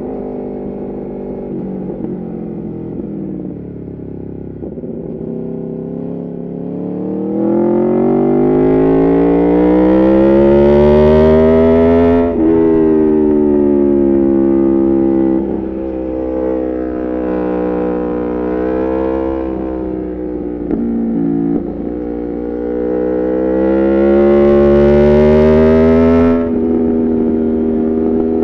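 Aprilia Tuono V4 Factory's V4 engine through an Arrow GP2 exhaust with the dB killer removed, ridden hard on a race track. It runs at lower revs for the first several seconds, then pulls through several long climbs in pitch, each cut off by a sudden drop at a gear change.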